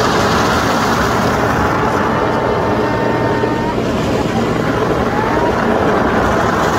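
Hydromassage bed running: a steady, loud hum from its pump with the rush of the water jets pounding against the underside of the vinyl cover.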